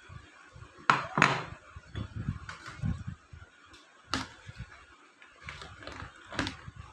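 Sharp knocks and clatter from utensils and a bowl being handled while puffed-rice bhel is mixed: about four louder knocks, with softer thuds and rustling between them.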